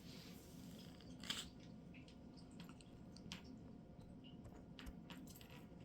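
Near silence: faint room tone with scattered soft clicks and one short hiss about a second in.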